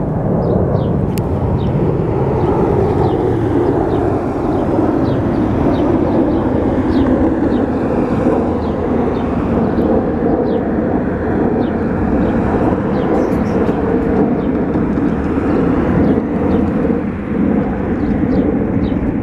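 Boeing 737-400 jet engines (CFM56-3 turbofans) at takeoff thrust as the airliner climbs away, a loud, steady, rumbling roar.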